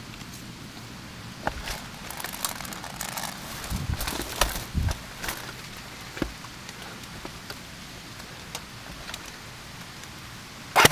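Crunching and rustling of someone moving through dry leaf litter, busiest in the first half, then quieter, with two sharp, loud clicks at the very end.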